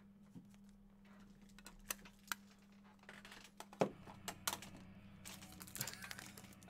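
Hard plastic card holders clicking and tapping as they are opened and handled: a few sharp clicks, a louder one nearly four seconds in, then a quick cluster of light taps, over a faint steady hum.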